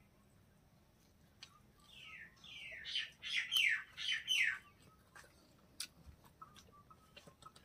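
A bird calling: a quick run of about eight chirps, each sliding down in pitch, about two seconds in and lasting a couple of seconds. Faint clicks of eating by hand sound around it.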